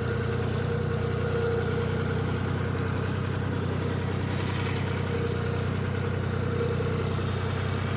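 Tractor engine idling steadily at a constant speed.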